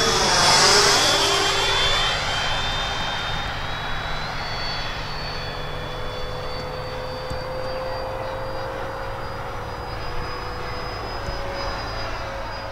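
Electric ducted fan of a radio-controlled F-4 Phantom model jet whining through a fast low pass, loudest about a second in with a rushing whoosh. It then settles to a steady high whine that rises in pitch around four seconds in as the jet flies off.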